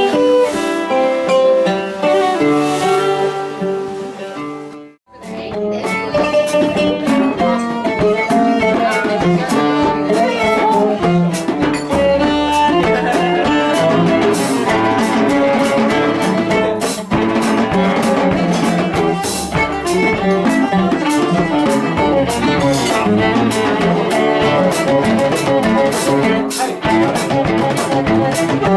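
Live folk band playing: bowed violin melody with plucked oud and drum kit strikes. The music cuts out abruptly for a moment about five seconds in, then carries on.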